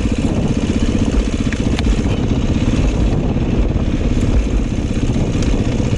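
Dirt bike engine running at low, steady revs on a downhill trail ride, with a few light clicks a little before two seconds in.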